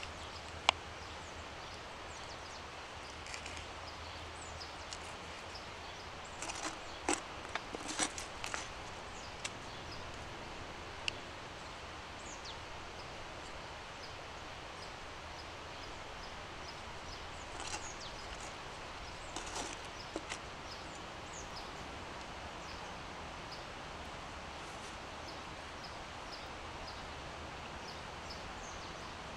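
Knife clicking and scraping on a wooden cutting board while slicing meat, as scattered sharp taps over a steady outdoor hiss: one loud tap about a second in, then clusters of taps around seven and nineteen seconds in.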